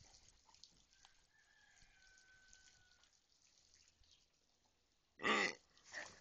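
Grey rubber squeaky toy pig giving out a loud, short, squealing grunt as it is squeezed, about five seconds in, followed by a weaker one just after.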